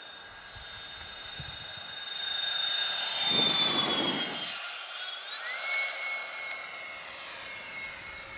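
Electric ducted fans of a Freewing A-10 model jet whining in a low pass: the whine swells to its loudest about three and a half seconds in and falls in pitch as the plane goes by. A little after five seconds the whine rises in pitch again.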